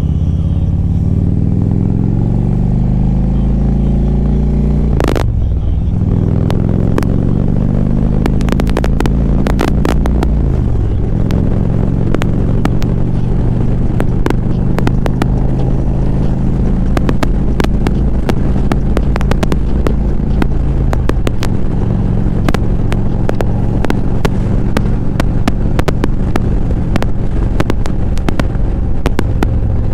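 Motorcycle engine pulling through the gears while riding in traffic. Its pitch climbs, drops at a shift about five seconds in, climbs again until another shift near ten seconds in, then holds at a steady cruise. Many short sharp ticks or flutters on the microphone through the second half.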